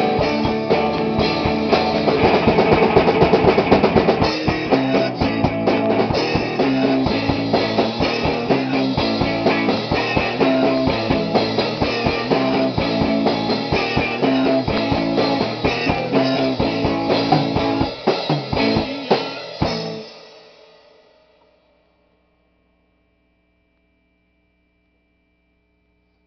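Rock band playing with drum kit, electric guitar and bass, ending the song about 20 seconds in with a final hit that rings out into near silence.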